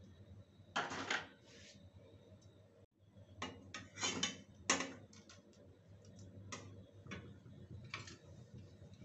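Irregular clicks and short clattering knocks over a faint low hum, with a louder clatter about a second in and a cluster of sharper clicks around the middle.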